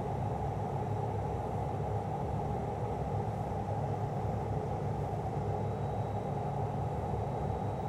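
Steady, even hum and rush with a low rumble underneath, from the fume extractor running over the work while stainless steel pipe is TIG welded.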